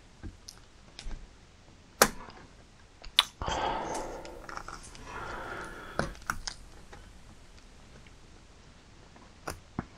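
Sharp metal clicks and taps of wire snap rings being worked into place over the dust seals of a rebuilt brake caliper, a handful in all, the loudest about two seconds in, with a couple of seconds of scraping handling noise in the middle.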